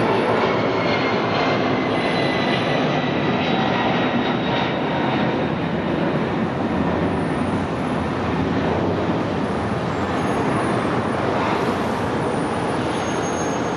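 Takeoff noise of a Boeing 767-231's Pratt & Whitney JT9D-7R4D turbofans: a loud, steady jet roar with a high whine that falls in pitch over the first few seconds, the whole slowly fading.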